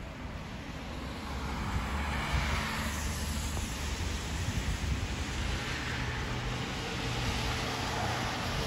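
Cars passing on a rain-soaked road, their tyres hissing on the wet pavement, over a steady low rumble; the traffic grows louder about a second in and swells as each vehicle goes by.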